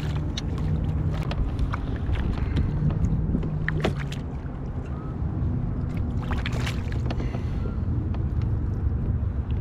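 Wind rumbling on the microphone, with water splashing as a hooked snook thrashes beside the kayak and is grabbed and lifted out by hand. Sharp splashes come in clusters near the start, about four seconds in, and again six to seven seconds in.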